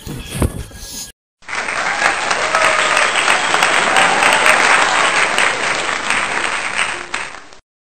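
Crowd applause, a dense steady clapping that starts about a second and a half in and cuts off abruptly near the end. Before it come a few low thumps of camera handling and a brief drop to silence.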